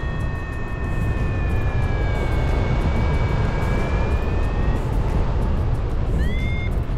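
Wind buffeting the microphone during a paraglider flight, a loud low rumble. Over it runs a high steady tone that drifts slowly in pitch and breaks off about five seconds in. A shorter tone rising in pitch follows near the end.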